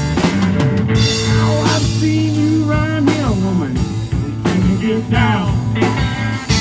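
Blues-rock band playing: a held bass note and drums under melodic lines with bent, sliding notes.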